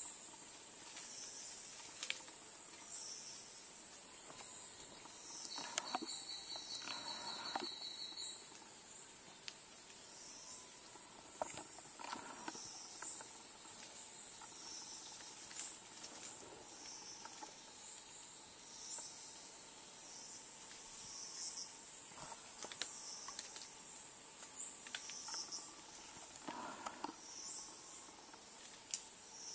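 Rainforest insect chorus: a steady high-pitched buzz with a chirp repeating about once a second and a short fast trill about six seconds in. Occasional faint rustles and clicks sound through it.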